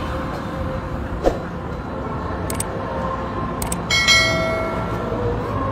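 Sound effects of a subscribe-button overlay: a few sharp mouse-click sounds, then a notification bell ding about four seconds in that rings out for about a second. Underneath runs a steady background din.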